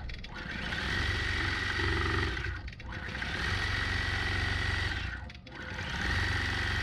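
Gammill Statler longarm quilting machine stitching a leaf pattern, its motor and needle running steadily and easing off briefly about every two and a half seconds.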